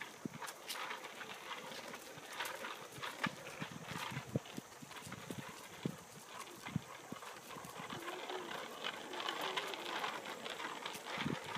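Irregular clatter and knocks of a child's bicycle with training wheels rolling along.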